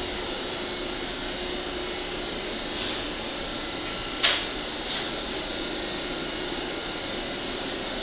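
Steady hum of building ventilation machinery, with a sharp click about four seconds in and a few lighter knocks.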